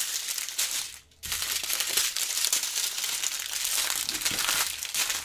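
Small plastic bags of diamond-painting drills and their packaging crinkling as they are handled and gathered up, with a short break about a second in.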